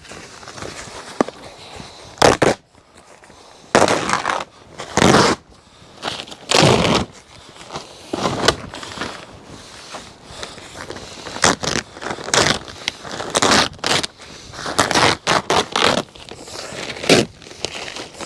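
Worn-out green polytunnel cover being pulled off its metal hoop frame: repeated short bursts of crackling and scraping as the sheet is tugged and dragged over the hoops.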